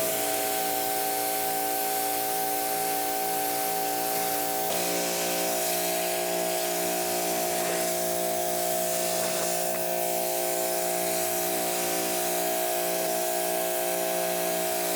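RYOBI electric pressure washer running: a steady motor-and-pump hum with several held tones under the hiss of the high-pressure water jet. The hum's tones shift slightly about five seconds in.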